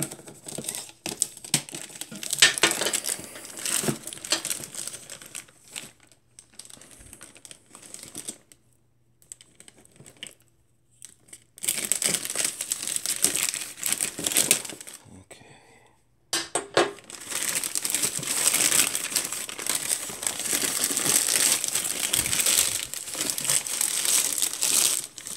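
Plastic poly mailer bag crinkling and tearing as it is slit with a pocketknife and pulled off a cardboard shoebox. The rustle comes in bursts, with a couple of short pauses, and is loudest in the second half.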